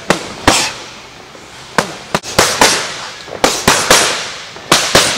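Red boxing gloves smacking a trainer's focus mitt in quick combinations of two to four punches, about a dozen sharp cracks in all, each with a short echo.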